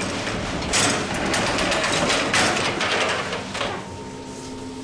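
Rough scraping and knocking of loaves and a peel on the stone deck of a bakery oven as bread is pulled out. It stops about four seconds in, leaving a steady low hum.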